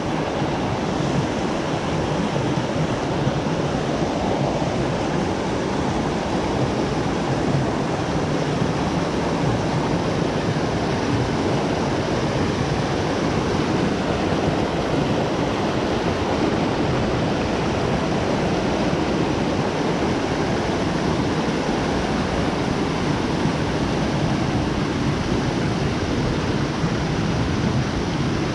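Mountain creek running over rocks and small cascades: a steady, loud rush of water.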